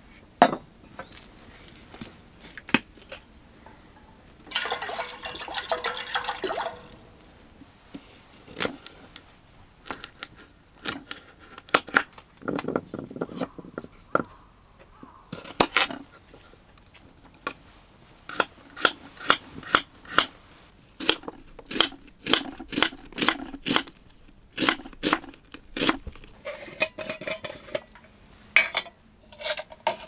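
Water poured from a bottle into an enamel milk pan for about two seconds, then a knife slicing a carrot on a wooden cutting board: a run of sharp knocks, about two a second, among clinks of kitchenware.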